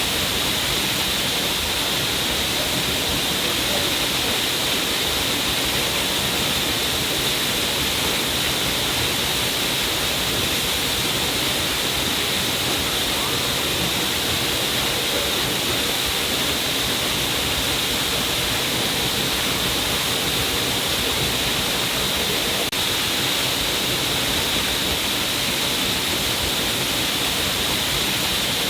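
A stream of water cascading down a rock cliff, a steady, unbroken rush of splashing water.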